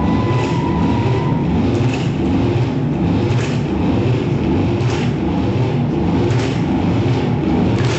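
Loud recorded show soundtrack in a low, rumbling, train-like passage, with a steady pulse and a sharp clack about every second.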